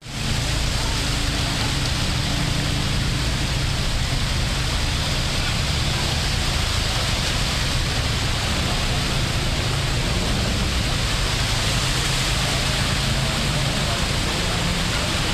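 Heavy rain falling in a steady hiss, with a low steady engine hum underneath.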